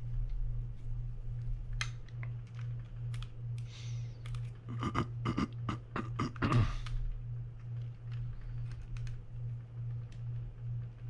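Light clicks and taps of small metal reel parts and hand tools on a workbench, with a dense run of clicking and rattling from about four and a half to seven seconds in. A steady low hum pulses underneath.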